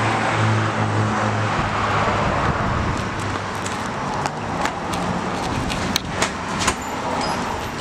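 Steady outdoor background noise with a low hum, and sharp taps from about three seconds in as someone runs across pavement.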